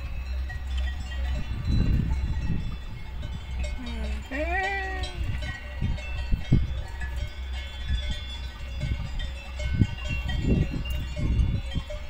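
Cowbells ringing faintly and irregularly from cattle grazing on the pasture below, over a steady low rumble. About four seconds in there is one short call that rises and falls in pitch.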